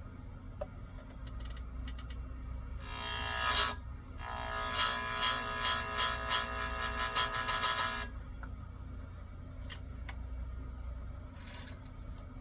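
Chainsaw chain being sharpened on a grinder: the grinding wheel rasps against a cutter in a short pass about three seconds in, then in a longer pass of about a dozen quick pulses, with a ringing whine from the wheel.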